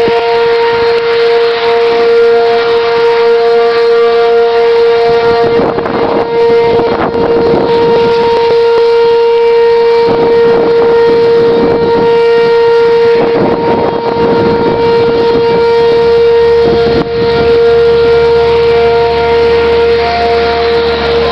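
Outdoor tornado warning siren sounding a loud, steady tone that holds one pitch, with gusts of wind buffeting the microphone several times.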